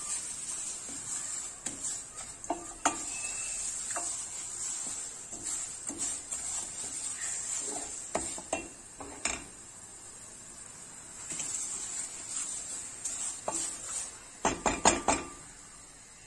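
Vermicelli sizzling as it toasts in oil in a stainless steel pot, a steady high hiss, with scattered clinks and scrapes of a spoon stirring against the pot. A quick run of knocks comes near the end.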